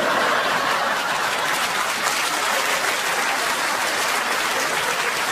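Seated theatre audience applauding steadily in response to a joke.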